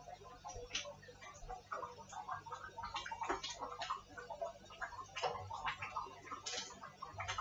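Faint, irregular light clicks and clinks of a spoon working in a steel cooking pot of stew, over a low steady hum.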